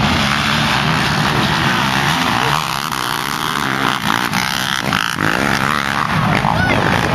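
Several racing quad engines at full throttle, their pitch swinging up and down as the pack accelerates past.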